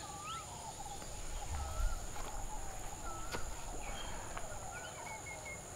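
Rural outdoor ambience: a bird repeats a short wavering call about every second and a half, with a brief run of quicker, higher notes near the end, over a steady high insect drone.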